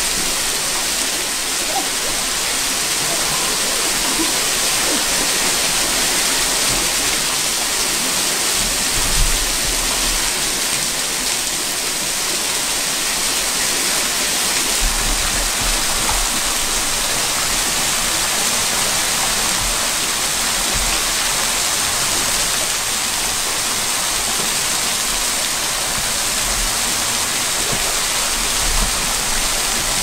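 Small waterfall pouring into a river pool: a steady, even rush of falling water.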